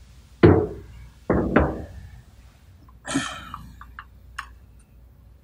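Metal knocks on the bench and vise as the steel attachment assembly and tools are handled: one loud knock about half a second in, two more about a second later, then a few lighter clicks and clinks.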